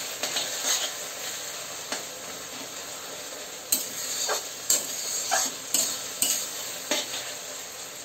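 Sliced onions and tomatoes sizzling in oil in a kadai while being stirred with a metal spatula, which knocks and scrapes against the pan about five times in the second half.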